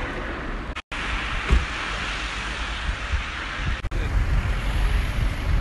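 Outdoor background noise with wind buffeting the microphone, broken by two brief drops to silence, about a second in and near four seconds.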